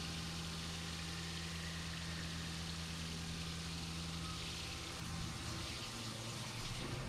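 CNC vertical milling machine running an end mill through a finishing pass on a steel-coloured locomotive rod under flood coolant: a steady machine hum over the hiss of coolant spray, the hum changing about five seconds in.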